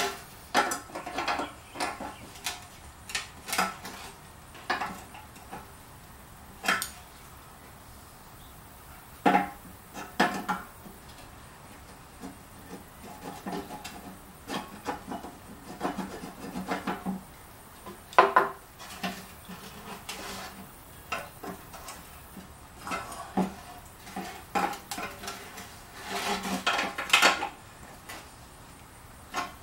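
Irregular metallic clinks, knocks and scraping of a steel tool working in the filler neck of a 2015 Honda Ruckus steel fuel tank, as the bent gas lip is straightened and opened out with a pipe expander so the cap will fit. The clinks come in scattered clusters with short pauses between.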